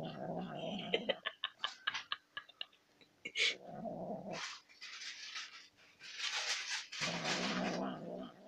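A domestic cat growling in three low, rough bursts while it eats sour cream, with a run of quick clicking licks between the first two and a breathy hiss-like stretch in the middle.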